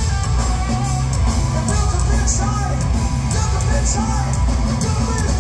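Punk rock band playing live and loud: distorted electric guitar, bass and drums with crashing cymbals, under a shouted vocal.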